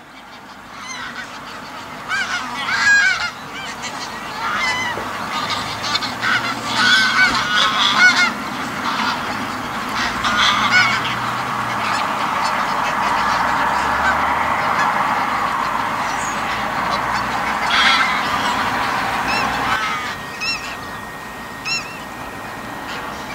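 A large flock of greylag geese honking. Many calls overlap and build into a continuous chorus through the middle, then thin out to a few scattered honks near the end.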